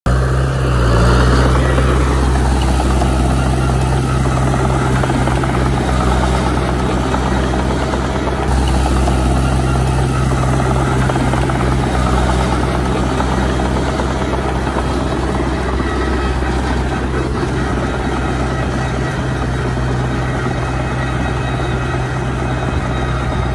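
Crawler bulldozer's diesel engine running steadily under load while pushing earth, a deep, even drone.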